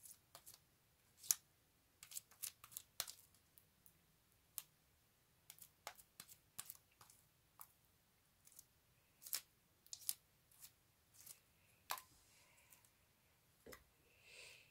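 Sticky gold glitter-glue slime being kneaded and pulled apart by hand, giving faint, irregular sticky clicks and crackles.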